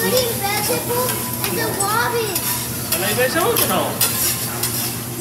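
Metal teppanyaki spatulas scraping and clacking on a hot steel griddle as they chop and toss fried rice, with steady sizzling underneath.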